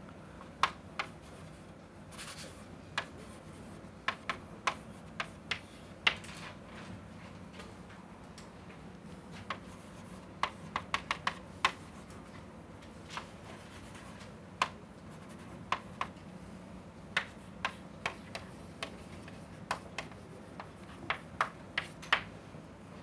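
Chalk writing on a chalkboard: irregular sharp taps as strokes land, often in quick clusters, with a short scrape about two seconds in.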